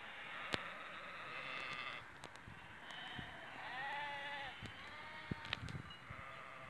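Flock of sheep bleating, several calls overlapping one after another from different animals, with a few sharp clicks.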